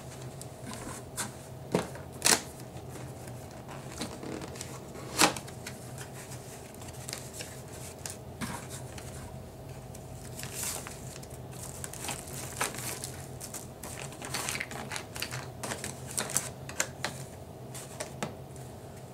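A cardboard box being opened and unpacked by hand, with plastic-bagged parts and paper rustling, crinkling and clicking. There are a few sharp knocks in the first five seconds, and the handling grows busier from about seven seconds in.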